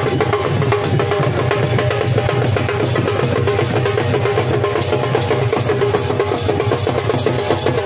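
Live traditional percussion, drums with metal cymbals, beating a dense, unbroken rhythm.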